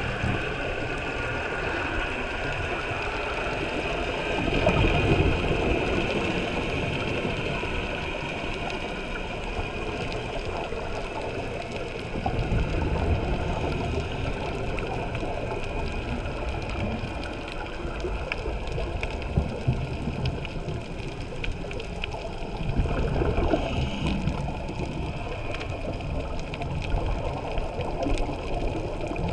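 Underwater ambience on a scuba dive: scuba regulator exhaust bubbles rising and a steady wash of water noise around the camera housing, with low bubbling surges swelling three times.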